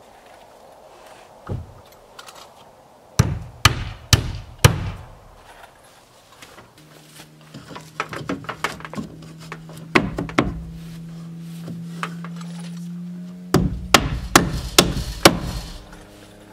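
Hammer driving nails into wooden boards on a framed addition sheathed in OSB, struck in sharp blows. There are four spaced strikes in the first few seconds, a quicker run about eight to ten seconds in, and a fast flurry of strikes near the end.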